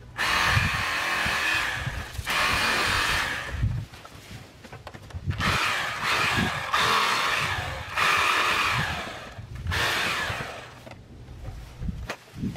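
Handheld power lawn tool revving in about six bursts of a second or so each, with short lulls between them.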